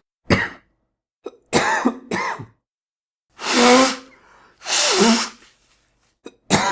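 A man coughing and clearing his throat in a series of separate fits: short coughs at the start and about a second and a half in, two longer, harsher ones near the middle, and another starting just at the end.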